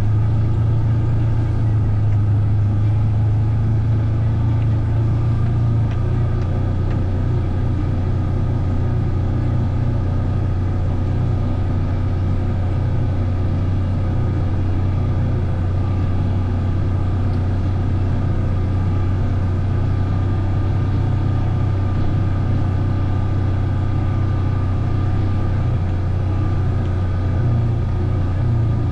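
Vehicle engine running at a steady speed, a low, even drone.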